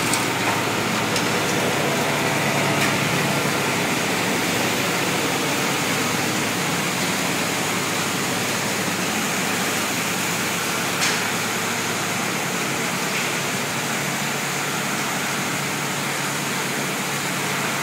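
Steady, even noise of a sawdust-drying line's machinery running, with one short knock about 11 seconds in.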